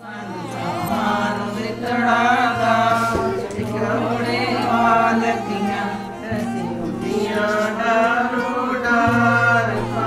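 A song starts abruptly out of silence: a singer's voice carrying a bending melody over a steady low drone.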